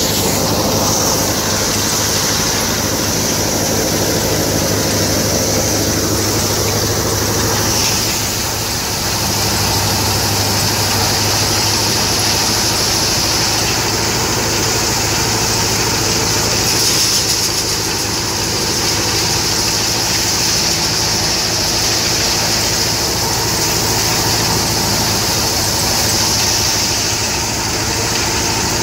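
Engine-driven wheat thresher running steadily while threshing: a constant engine hum with a steady high hiss from the machine over it.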